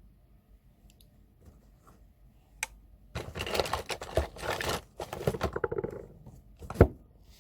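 Scratchy rustling handling noises lasting about three seconds, preceded by a small click and followed near the end by one sharp click.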